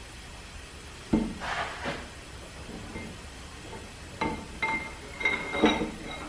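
Steam engine piston with new rings knocking and scraping against the cast cylinder as it is lowered into the bore, then several ringing metal-on-metal clinks near the end as the rings touch the cylinder mouth.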